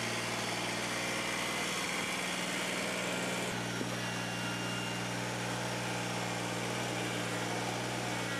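Kubota compact tractor's diesel engine running at a steady speed as the tractor backs up to the rear blade to hitch it.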